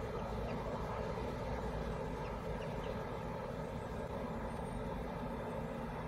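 Steady outdoor background rumble, even and unbroken, with no distinct knocks or calls standing out.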